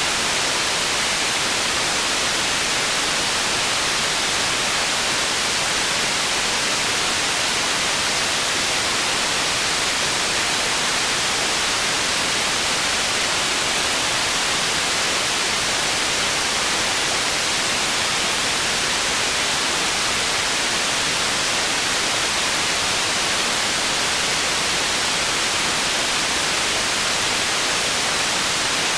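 Processed white noise made for tinnitus masking: a steady, unbroken hiss, strongest in the treble with little bass.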